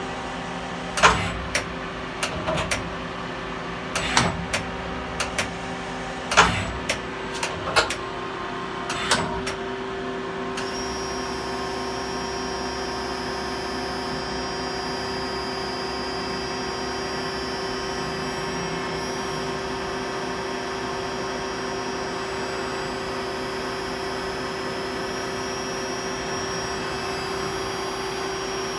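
Brother TC-S2A CNC drill tap center during a tool change: a run of sharp clunks and clicks from the tool-changer turret and spindle head over the first nine seconds or so, over a steady machine hum. About ten seconds in, a steady high whine starts and holds.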